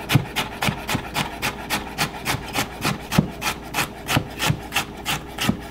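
Chef's knife chopping carrot into thin matchsticks on a wooden cutting board, each cut a sharp tap of the blade on the board in a quick, steady rhythm of about four to five cuts a second.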